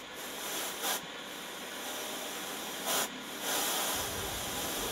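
Converted Sieg X3 CNC mill's end mill cutting into a metal plate: a hissy, scraping cutting noise that grows louder, with a couple of sharp clicks.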